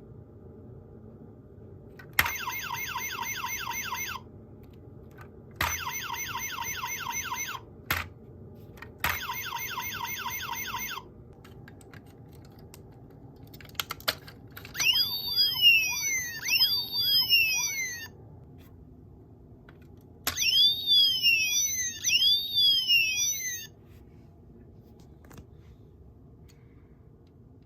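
Electronic police-siren sounds from a DX Sirender toy's small speaker. First come three short bursts of a rapid electronic warble, each about two seconds long. Then, after a couple of clicks from its buttons, come two longer stretches of a wailing siren that swoops up and down in pitch.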